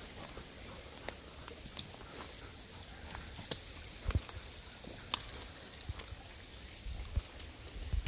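Footsteps crunching and tapping irregularly on a dry woodland path, with a faint, short high note recurring every few seconds.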